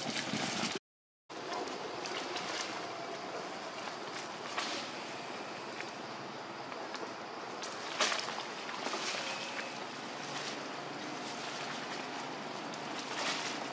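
Steady outdoor background hiss with scattered rustles and sharp clicks. The sound cuts out completely for about half a second, about a second in.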